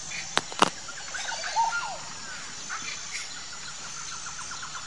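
Birds chirping, then a fast even trill of short notes, over a steady high insect drone. Two sharp clicks stand out about half a second in.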